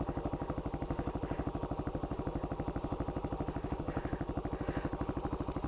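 Single-cylinder Yamaha WR250X engine with an aftermarket Delta Barrel4 exhaust idling: a steady, even beat of firing pulses, about nine or ten a second.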